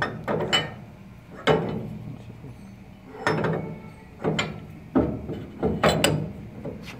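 Perforated steel grinder plate knocking and clinking against the end of an industrial meat grinder's barrel as it is worked over the centre shaft and seated. The knocks come singly and in quick pairs and threes, some ringing briefly.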